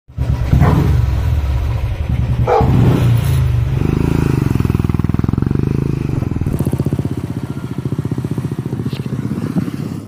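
Royal Enfield Bullet's single-cylinder engine running through an aftermarket Wild Boar silencer: revving hard through the middle, then running more steadily from about six and a half seconds in. A dog barks twice in the first three seconds.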